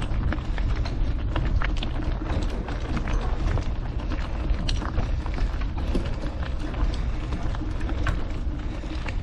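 Mountain bike rolling along a gravel trail: tyres crunching over stones and the bike rattling, with many small clicks and knocks over a steady low rumble.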